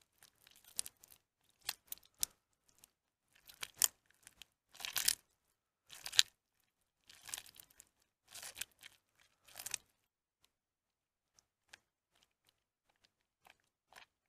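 Soaked, mushy bar soap squeezed, crumbled and pulled apart by hand: a string of short crunching bursts for about ten seconds, then only a few faint ticks.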